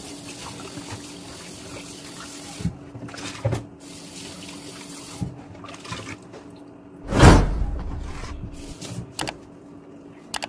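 Tap water running into a stainless-steel sink and splashing over a raw whole chicken as it is rinsed by hand, with small knocks of handling. About seven seconds in comes a loud rushing burst that fades over about a second.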